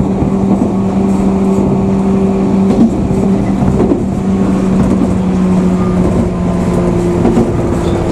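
JR West 103 series electric train running, heard from inside the carriage: a steady rumble of wheels on rail with a low hum that sinks slightly in pitch near the end.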